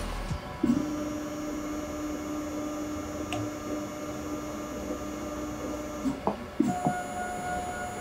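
Drive motor of a motorized force test stand running with a steady whine as it drives a scalpel blade down into a kiwi. About six seconds in it stops with a few clicks, then starts again with a higher-pitched whine.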